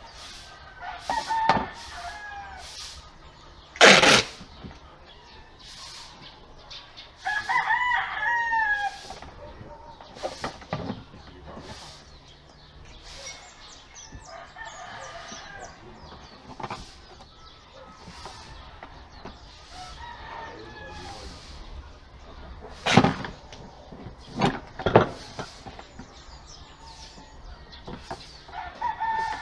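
A rooster crowing, with a long crow about seven seconds in. It is broken by a few loud, sharp handling noises from the duct-tape repair work: one about four seconds in and three close together near the end.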